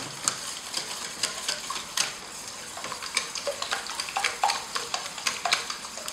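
Wire whisk beating eggs in a stainless steel bowl: quick, irregular clicking and tapping of the wires against the metal, several strokes a second, over a wet swish of the egg mixture.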